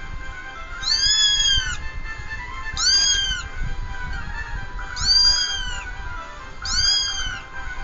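A kitten meowing four times, high-pitched calls about two seconds apart, each rising and then falling in pitch.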